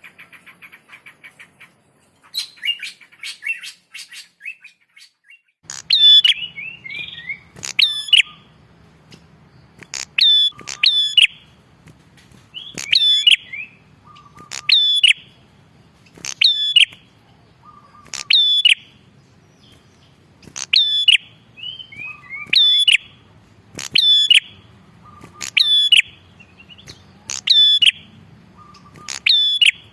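Prinia (prenjak) singing: a fast chattering trill at the start, then loud phrases repeated about every two seconds, each a sharp high note followed by a short run of quick notes.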